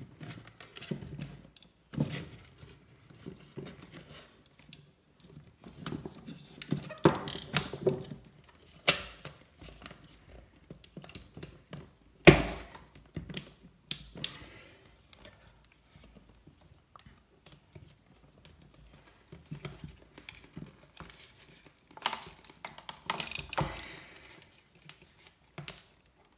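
Irregular clicks, knocks and rustling of hands fitting the regulator module and the lid into the power supply's enclosure, with one sharp knock about halfway through.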